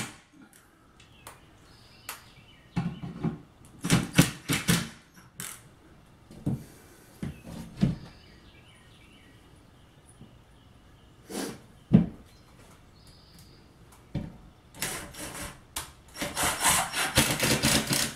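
Cordless impact driver sinking drywall screws through a ceiling patch into the joists, in several separate bursts of rapid hammering, the longest near the end: all kinds of racket.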